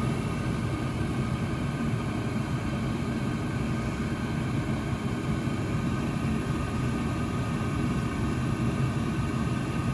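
Steady motor-and-fan hum of running heating equipment, an even low drone that doesn't change.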